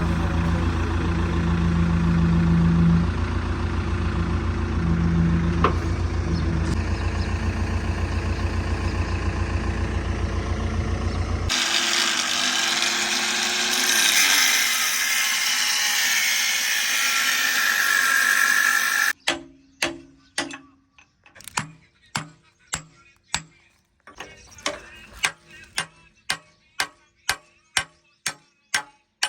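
JCB 3DX backhoe loader's diesel engine running steadily. About eleven seconds in it cuts to a harsher hissing noise. From about nineteen seconds come sharp, evenly spaced clicks, roughly one a second.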